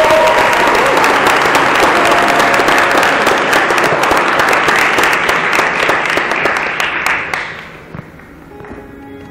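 Audience applauding, with a short rising whoop at the start. The applause dies away about eight seconds in, and faint sustained instrument notes begin near the end.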